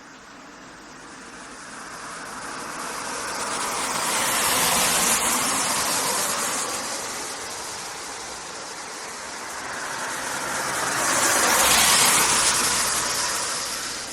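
Rush-hour road traffic passing close by: two vehicles go by, the first swelling and fading about five seconds in, the second louder and peaking about twelve seconds in.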